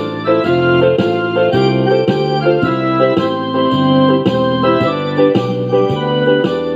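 Background music played on an electric keyboard or organ: sustained chords changing about twice a second at a steady level.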